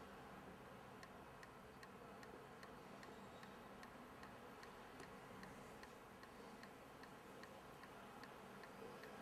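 Near silence: faint room tone with a soft, regular ticking, about two and a half ticks a second.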